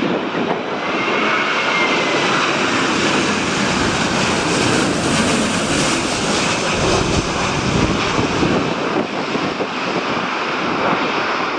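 Airliner's engines running, a loud, steady rushing noise, with a faint rising whine about a second in.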